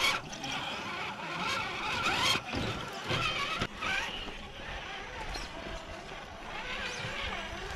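Radio-controlled scale crawler's electric motor and geared drivetrain whining, its pitch rising and falling as the throttle is worked, cutting off abruptly a couple of times.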